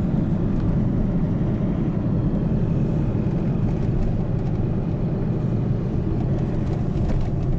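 Steady engine and road noise inside a moving car's cabin, an even low rumble with no change in pace.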